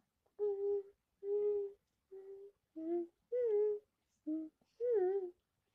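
A young girl humming a short tune in seven separate notes with brief gaps, a few of them sliding in pitch.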